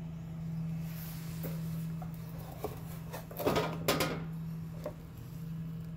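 Glass whisky bottle handled and lifted out of its cardboard presentation box: a few light knocks and a short scraping rustle about three and a half seconds in, over a steady low hum.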